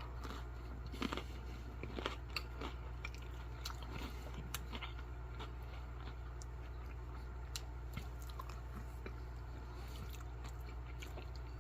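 A person chewing and biting food close to the microphone, with crunchy bites in the first three seconds or so and sparser mouth clicks after, over a low steady hum.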